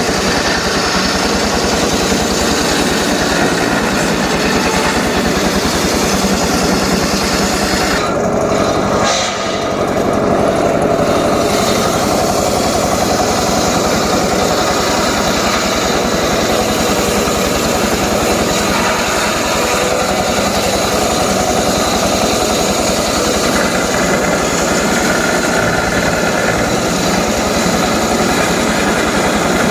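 Engine-driven homemade circular saw running loudly and steadily. About eight seconds in, the higher part of the sound fades for around three seconds, then comes back.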